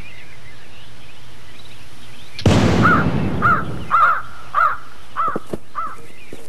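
A single loud gunshot about two and a half seconds in, its report dying away over a second or so, followed by a crow cawing six times in an even rhythm.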